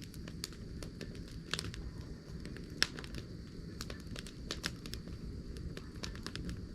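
Campfire of damp firewood crackling, with irregular sharp pops and snaps over a low steady rumble and a thin steady high hum.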